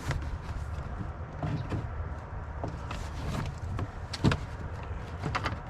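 Small clicks and rubbing as a plastic door-lock slider is worked off a truck's door panel, with one sharper click a little after four seconds in, over a steady low hum.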